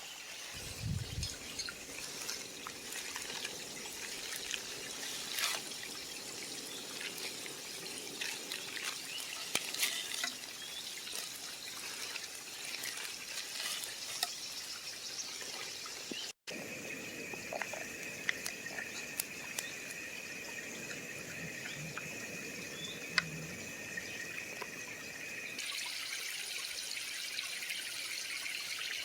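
Creek water trickling, with scattered small clicks and knocks in the first half. After a short break about halfway through, a steady high tone sits over the water until another change near the end.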